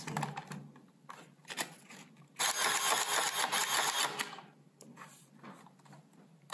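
Citizen CBM-910II dot-matrix printer's paper-feed mechanism running for about two seconds in response to the LF button, drawing the roll paper in and out through the ribbon cassette. A few light clicks come before it.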